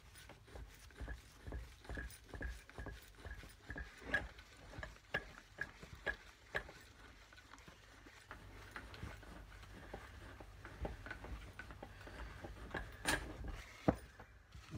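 Light repeated metallic clicking, about two a second at first and then sparser, as the top cap of a BSA A70L fork leg is unscrewed by hand off its chrome stanchion. A sharper click comes near the end as the cap comes free.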